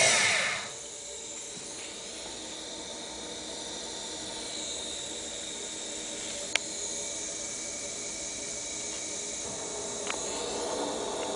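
End mill on a CNC mill cutting a notch into a steel tube; the cutting noise breaks off under a second in. After it comes a steady hiss, with a sharp click about six and a half seconds in and a fainter one near ten seconds.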